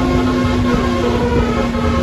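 Bus 'telolet' musical air horn (Basuri type) playing a tune of held horn notes over a steady low note, with a low engine rumble underneath.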